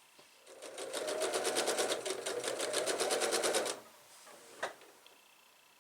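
Sewing machine stitching a seam in one run of rapid, even stitches that starts about half a second in and stops after about three seconds, followed by a single click about a second later.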